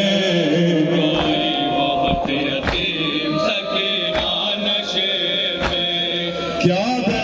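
A male noha reciter chanting an Urdu lament in long, wavering held notes, over a steady beat struck about every one and a half seconds.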